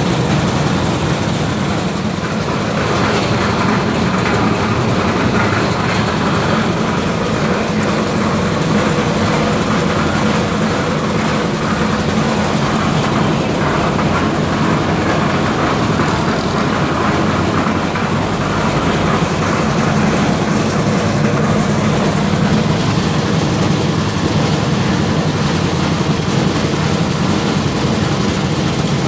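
Motorstar 6.5 HP single-cylinder four-stroke gasoline engine running steadily, belt-driving the turning drum of a one-bag cement mixer.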